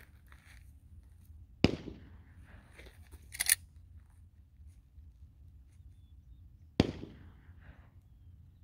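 Two sharp gunshot cracks about five seconds apart, each with a short echoing tail, and a brief crackle between them.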